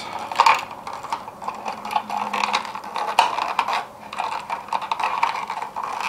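Insulated copper wires and wire nuts being folded and pushed back into a blue plastic electrical box, with irregular clicks, scrapes and rustles of wire against the plastic.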